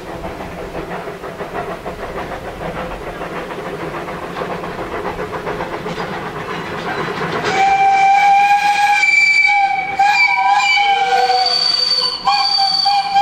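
Narrow-gauge steam locomotive approaching with its exhaust beating rapidly. From about seven seconds in its steam whistle sounds in long, loud blasts of several tones, with a short break near the end.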